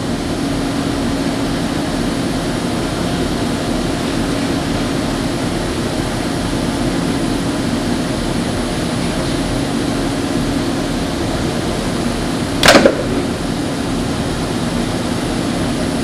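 Steady mechanical hum with a low steady tone from the Unimate Puma 760 robot workcell while the arm places a wooden part, broken by one loud, short knock about thirteen seconds in.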